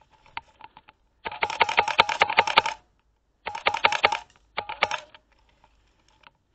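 Airsoft guns firing three rapid full-auto bursts of sharp clicks, the first and longest lasting about a second and a half, the other two shorter.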